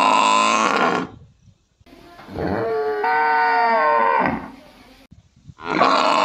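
A water buffalo's loud call ends about a second in. Then a cow moos for about two seconds, its pitch stepping up partway through. Near the end the buffalo calls again.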